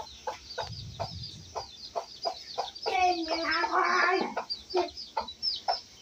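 Birds calling: short, evenly spaced clucks about three a second, with many high falling chirps over them. A louder call lasting over a second comes about three seconds in.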